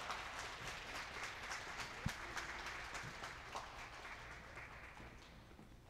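Faint, sparse applause and hand-clapping from a small crowd, thinning out and dying away near the end.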